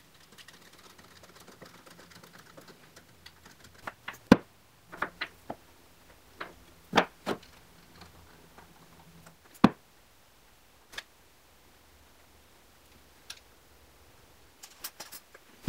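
Hand-tool work on a wooden workbench: a faint rasp of a screwdriver turning a small screw at first, then a string of separate sharp knocks and clicks of tools and small wooden pieces being handled and set down. A quick cluster of clicks comes near the end as a spring clamp goes on.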